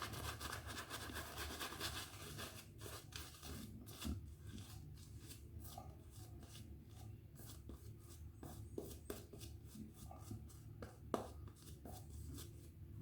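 Faint scratchy rubbing strokes on a lathered face during a wet shave: dense for the first few seconds, then sparser, short strokes.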